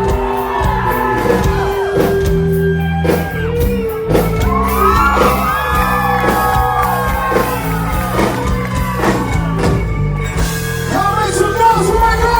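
Live band playing outro music over held bass notes, with wordless vocal glides and shouts and whoops echoing in a large hall.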